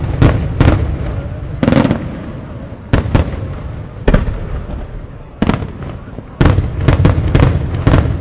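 Aerial firework shells bursting in a fast, irregular series of loud bangs, about a dozen, some coming in quick clusters near the start and again from about six seconds in, each trailing off in a rolling echo.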